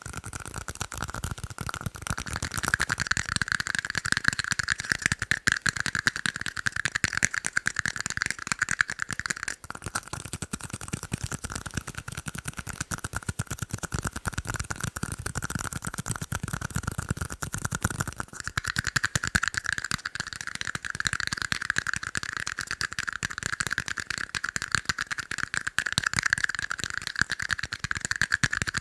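Fast, continuous tapping on tiny cups, many quick taps a second, with a ringing tone from the cups under the taps. The tapping breaks off briefly about ten seconds in and again about eighteen seconds in.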